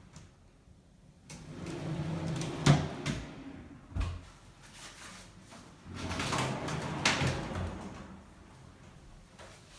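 Drawers and doors of a handmade wooden understairs storage unit being opened and closed: two stretches of sliding noise, each ending in a sharp knock as it shuts, with a low thump between them.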